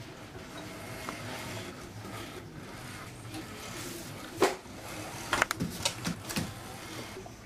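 Kittens play-fighting, with light scuffling, one sharp knock about halfway through and a quick run of small knocks and clicks near the end, over a steady low hum.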